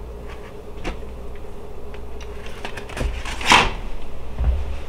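Aluminium foil crinkling as it is lifted off a platter, with a few light crackles and then a loud crumpling rustle about three and a half seconds in, followed by a couple of soft knocks near the end.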